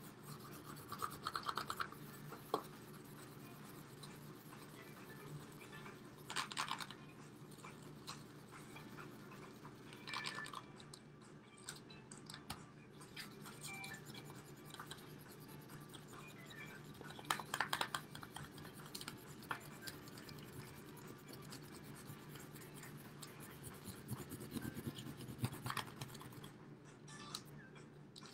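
Marker tip scribbling back and forth on a paper plate, a quiet scratchy rubbing that comes and goes in bursts as the plate is coloured in.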